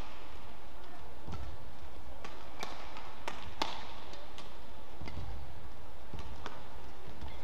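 Badminton rally: rackets striking a feather shuttlecock with sharp, crisp hits about once a second, along with low thuds of the players' footwork on the court.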